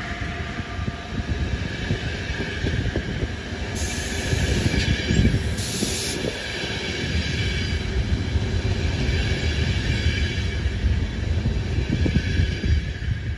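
Locomotive-hauled passenger coaches rolling past on the track: a steady rumble of wheels on rails, with two brief high squeals about four and six seconds in.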